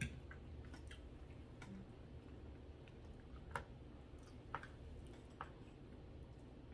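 Metal forks clicking against dinner plates while eating: a few faint, scattered clicks, the clearest three about a second apart in the second half, over a low steady room hum.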